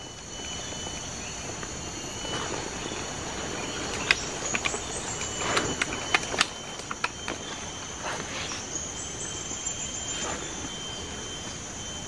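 Steady high-pitched insect drone, with a run of sharp clicks and brief rustles about four to seven seconds in and a few more after.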